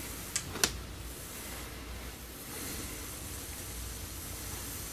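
Faint steady hiss of a hot soldering iron tip being worked through tip tinner compound, with two light clicks of the tip against the tin in the first second. The tip is badly oxidized and the tinner is being used to try to clean and re-tin it.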